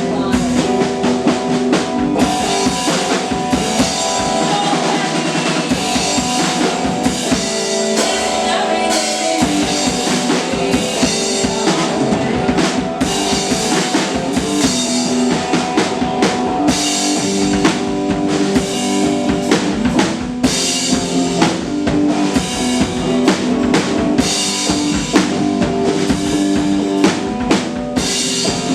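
Live indie folk rock band playing an instrumental stretch: a drum kit with bass drum, snare and rimshots keeps a steady beat under sustained guitar chords. The low end fills out about ten seconds in.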